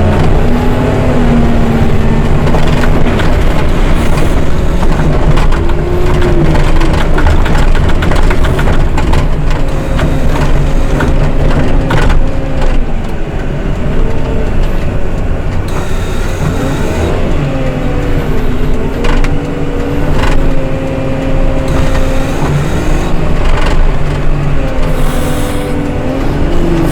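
Diesel engine of a heavy snow-clearing machine running under load, its pitch rising and falling as it works, with a few sharp knocks midway.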